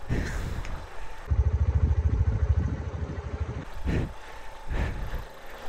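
Suzuki VanVan 125's single-cylinder four-stroke engine running at low revs as the bike is ridden slowly through water. Its low pulsing is loudest between about one and three and a half seconds in, with a few short bursts of noise around it.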